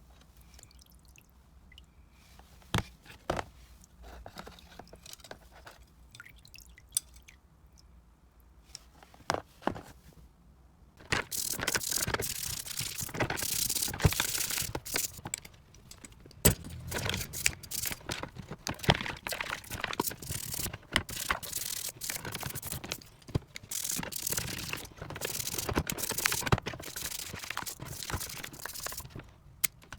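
Metal vice-grip pliers clinking now and then as they are handled, then, from about 11 seconds in, busy scrubbing and scraping on the metal with frequent clicks, stopping and starting.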